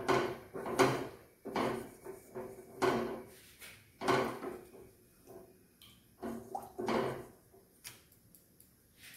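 Spatula scraping around a stainless-steel kadai as thin gravy is stirred, about eight strokes roughly a second apart. The strokes stop a little before the end.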